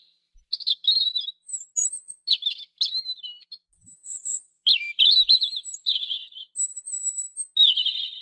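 Robin singing: a run of short, high, warbling phrases with brief pauses between them.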